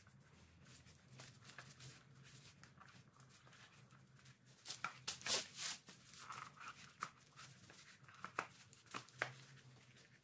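Rubber bicycle tyre being worked onto the rim by hand: scattered scrapes, rubs and clicks, busier and louder from about halfway through, over a faint low hum.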